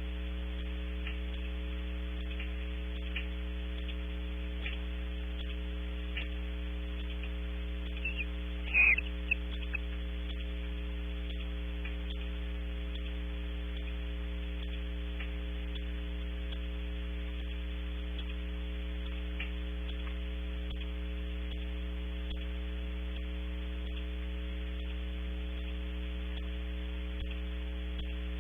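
Steady electrical mains hum on a wildlife webcam's audio feed, the sign of a fault in the microphone line, with faint high ticks every second or two and one brief, sharp, louder high sound about nine seconds in.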